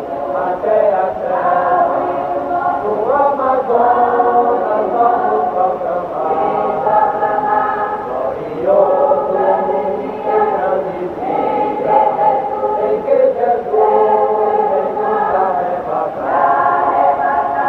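Church choir singing a hymn in parts, with held notes and phrases that change every few seconds.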